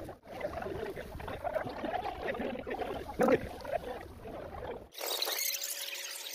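Water running out of a plastic pipe and splashing into a muddy drain, with a faint crowd murmur. Near the end the sound cuts abruptly to a thin hiss with a faint steady tone.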